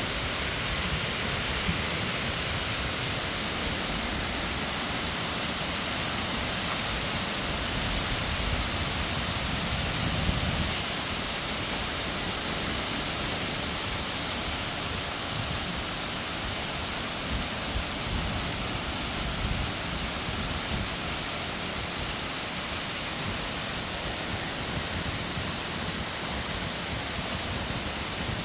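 Rain falling steadily in a thunderstorm, an even hiss, with a few brief low swells about ten seconds in and again around the middle.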